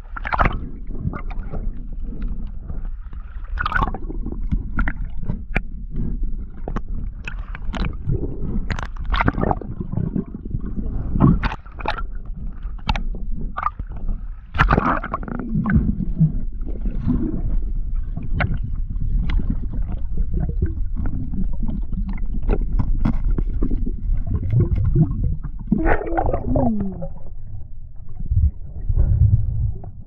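Underwater sound as picked up by a camera in its housing: a steady low rumble of moving water with gurgling bubbles and many scattered short clicks and knocks.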